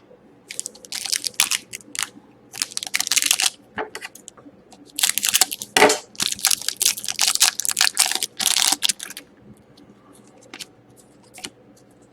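Foil trading-card pack wrapper crinkling and tearing in bursts as a pack is opened, fading to a few light clicks and rustles of cards being handled near the end.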